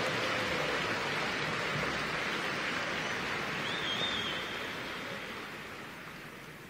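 A large audience applauding in a big hall, a dense steady clatter of clapping with a short high whistle about four seconds in, fading away near the end.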